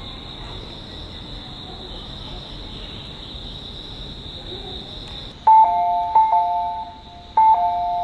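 Steady high-pitched hiss of station platform ambience. About five seconds in, a loud two-note electronic station chime starts: a higher note falling to a lower one, sounded over and over with short gaps.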